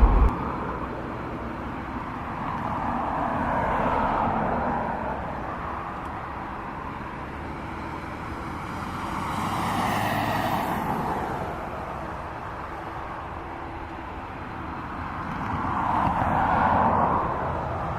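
Outdoor traffic noise: passing vehicles swell up and fade away three times, each pass lasting several seconds.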